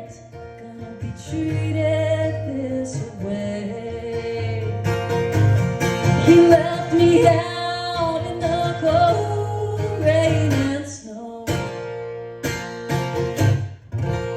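Acoustic bluegrass band playing the instrumental close of the song, with a lead guitar line prominent over a steady bass. In the last few seconds the music thins to a few separate final chords.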